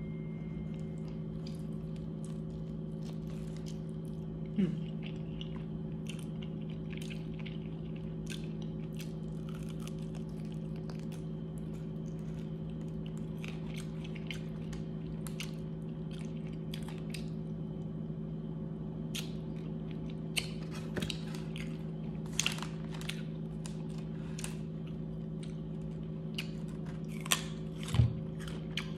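A person eating chicken wings: crunchy bites and chewing, with sharper crunches now and then, a few louder ones near the end, over a steady low hum.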